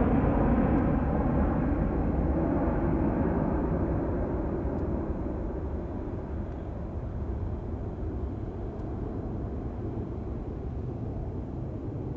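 Jet noise from the four engines of a Boeing 747-400F freighter climbing out after takeoff. It fades steadily as the aircraft moves away, and its higher tones die out first.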